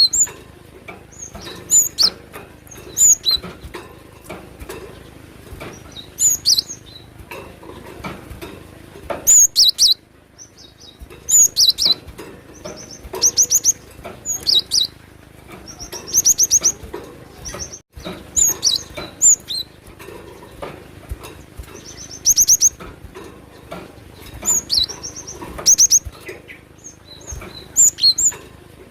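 Cinereous tit (glatik batu) singing: short, high-pitched phrases of rapid repeated notes, recurring every second or two.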